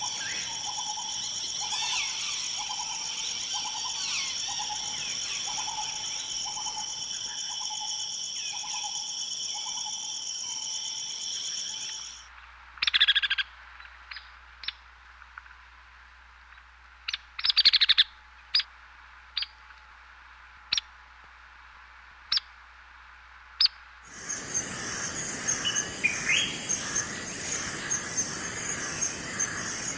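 Forest ambience of birds calling. At first a steady high insect drone runs under a low call repeated about once a second. About halfway through the drone cuts out, leaving only sparse, sharp chirps. A few seconds before the end another high drone starts, with birds calling over it.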